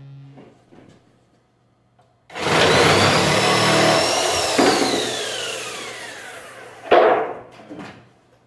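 A hand-held electric power tool starts abruptly and runs loud for about two seconds. It is then let go and spins down with a long falling whine. There is a sharp knock near the end.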